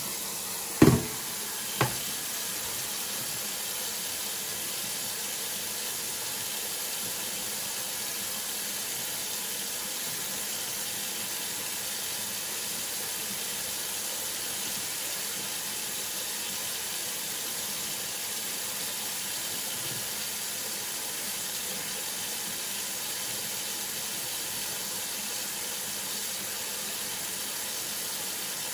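Kitchen faucet running a steady stream of water into a stainless steel sink, a continuous even hiss. Near the start there are two sharp knocks about a second apart, the first the louder.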